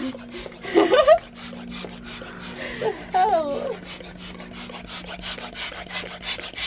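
Air pump inflating a clear plastic inflatable chair: the plastic rubs and rustles in quick, regular strokes, over a faint steady hum.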